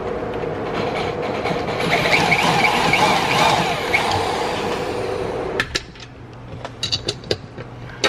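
Handheld electric drill running steadily with a held motor whine, getting louder and rougher about two seconds in as it works, then stopping abruptly about five and a half seconds in. A few light metallic clicks and taps follow.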